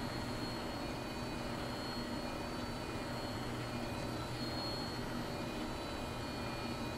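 Small electric motor of a spinning feather cat toy whirring steadily, with a faint high whine that rises and fades.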